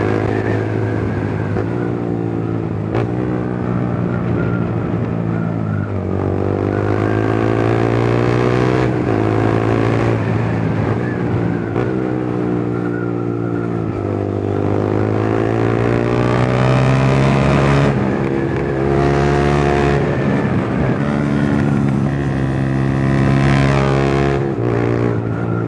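Yamaha motorcycle engine being downshifted through the gears with rev-matching: the throttle is blipped on each downshift so the engine note jumps and glides up, then falls away under engine braking, several times over.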